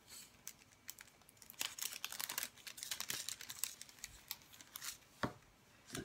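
Paper and clear plastic stationery rustling and crinkling in short, irregular bursts as it is handled, with one sharp tap near the end.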